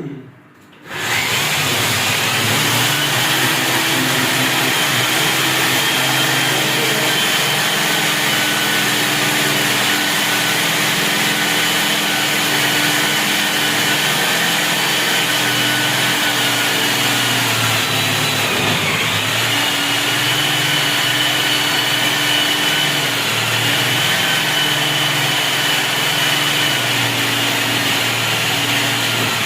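An electric power tool's motor starts about a second in and runs steadily under load, with a brief dip in pitch a little past the middle.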